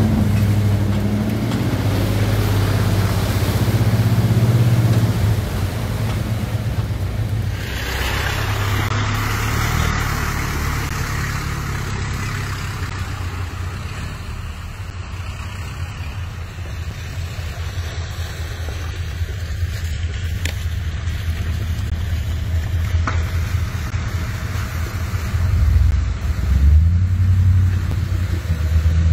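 1985 Ford Bronco's engine running, heard from inside the cab while driving. It then changes to trucks driving through a muddy trail, with the engine growing louder and revving near the end as a white full-size SUV pushes through the mud.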